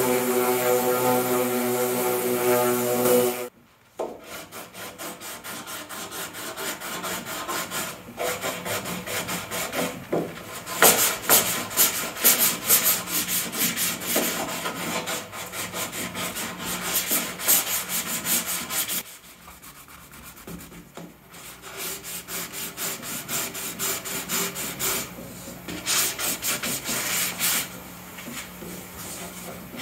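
Fiberglass body panel being sanded by hand to rough up the gel coat: repeated uneven scraping strokes of abrasive on fiberglass, with short pauses. A motor hums at a steady pitch for the first few seconds and cuts off suddenly.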